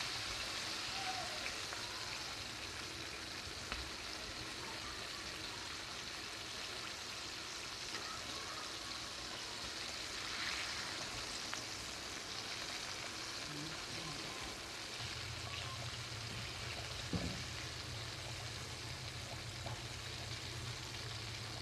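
Breaded chicken pieces deep-frying in hot oil in a karahi: a steady crackling sizzle. A low steady hum joins about two-thirds of the way through.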